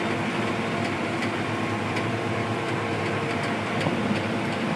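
Combine harvester running while unloading wheat on the move through its unloading auger: a steady mechanical hum with several level tones over an even rushing noise.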